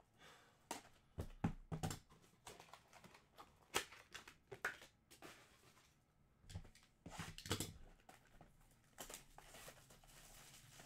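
Trading cards being handled on a table: irregular light clicks, taps and short rustles.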